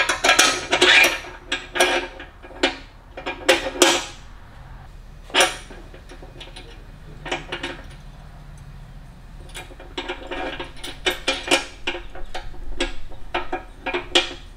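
Small metal hardware clinking and rattling in the hands as a motorcycle's rear seat latch and its bolts are fitted to the frame: scattered sharp clicks, thickest in the first four seconds and again from about ten seconds in.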